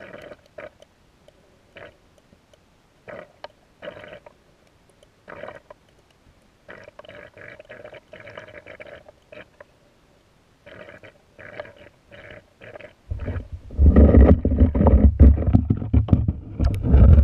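Underwater river sound: short, irregular gurgles and bubbling heard through a submerged camera. About three-quarters of the way through it gives way to loud, low rumbling and sloshing as the camera housing is moved up toward the surface.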